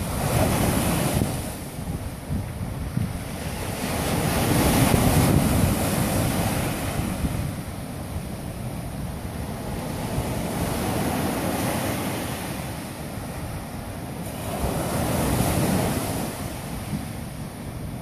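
Atlantic surf breaking on a sandy beach: a continuous wash that swells and ebbs slowly as each wave comes in and runs back. Wind buffets the microphone with a low rumble underneath.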